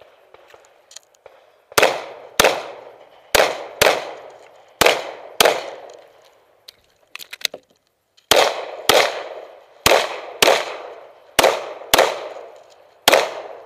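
Semi-automatic pistol fired rapidly in pairs, about half a second between the two shots of each pair, thirteen shots in all. Partway through there is a pause of about two seconds with a few light clicks.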